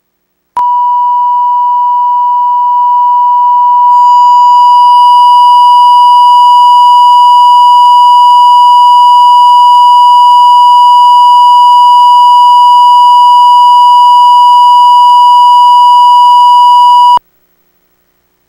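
1 kHz test tone played with colour bars: one steady, unwavering beep that starts about half a second in, gets a little louder a few seconds in, and cuts off abruptly near the end.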